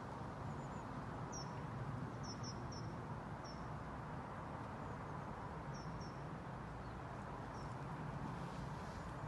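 A small bird gives short, high chirps about ten times, singly and in quick pairs and threes, over a faint, steady low rumble.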